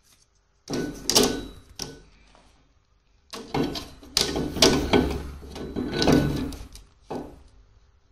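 Metal parts clattering and clanking as they are handled and set down, in two main bouts with sharp knocks and a faint metallic ring.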